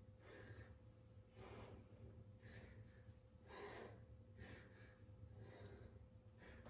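Faint breathing of a woman exerting herself through kettlebell swings, a breath puffed out about once a second in time with the swings, over a low steady hum.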